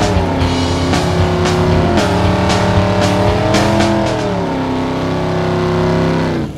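A car engine revving, its pitch falling and rising several times, over background music with a steady beat; both cut off abruptly at the end.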